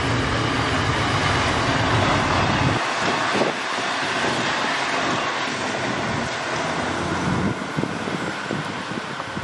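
The steam-hauled special train of A2 986 rolling past close by as a steady rush of rail noise. The deep rumble drops away sharply about three seconds in, leaving a hiss of wheels on rails that slowly fades.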